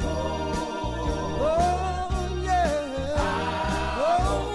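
Gospel quartet song: a lead singer's voice sliding up into held notes over a bass line and a steady drum beat of about two beats a second.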